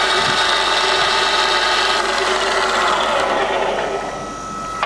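TOS FA3AU milling machine's spindle and gearbox running at top-range speed, 1,400 rpm, with a steady whine. The sound fades in the last second or two as the spindle starts to run down.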